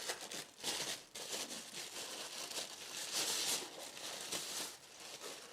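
Plastic packaging crinkling and rustling in uneven bursts as an amplifier is unwrapped from its wrapping.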